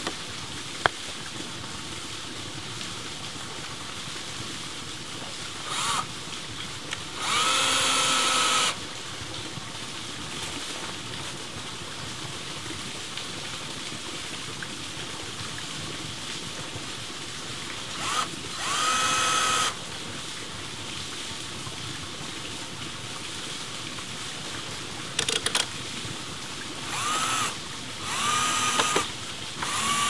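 Cordless drill driving screws through a metal pipe strap into the wooden frame holding a PVC pipe. It whirs in about six short bursts several seconds apart, each rising in pitch as it spins up, the longest about a second and a half.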